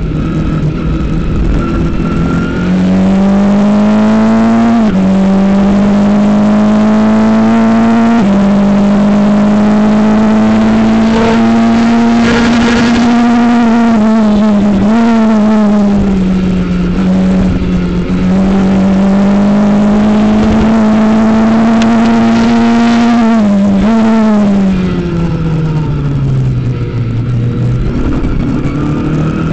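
Formula Ford single-seater's four-cylinder engine heard onboard at racing speed, its note climbing through each gear with short dips at the upshifts. About 24 s in, the pitch falls away steadily as the car brakes and changes down for a corner, then starts climbing again near the end as it accelerates out.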